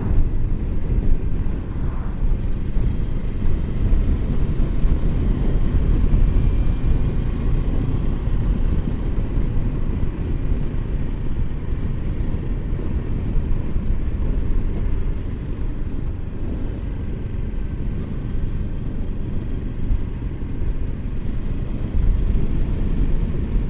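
Riding noise from a Kawasaki Versys 650 motorcycle at road speed: a steady low rumble of wind buffeting the microphone over the engine and tyres, easing a little past the middle and rising again near the end.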